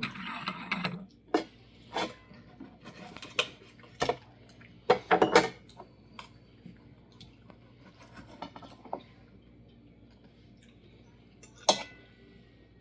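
Cutlery clinking and scraping against a plate: a scrape at the start, then irregular sharp clicks with a quick cluster about five seconds in. Near the end one sharper clink leaves a brief ringing tone.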